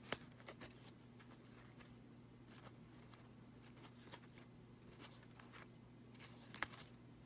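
Upper Deck hockey cards being leafed through by hand: faint scattered clicks and rustles of card stock sliding over card, a sharper click just after the start and a couple near the end. A faint low steady hum lies underneath.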